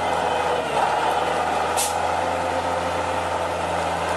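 Engine of a tracked Ural truck swamp vehicle running steadily as it crawls through a bog, its pitch easing down slightly just under a second in. A short hiss about two seconds in.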